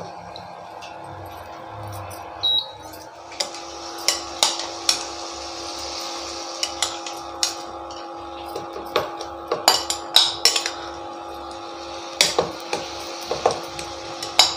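Marinated chicken sizzling in oil in a nonstick pan, with repeated sharp clinks and scrapes of a steel spoon against the bowl and pan as more chicken is spooned in.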